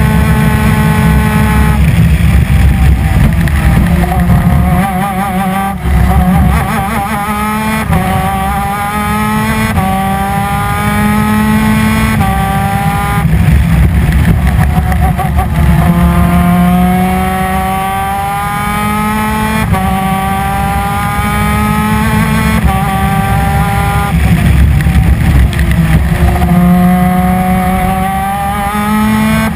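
PVP 250 cc two-stroke twin-cylinder superkart engine at racing speed. Its pitch climbs again and again as it pulls through the gears, dropping sharply at each shift, with a steady low rumble underneath.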